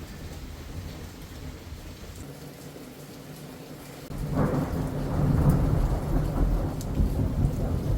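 Thunderstorm with rain falling and a low rumble, then about four seconds in a sudden loud clap of thunder that rolls on as a heavy rumble.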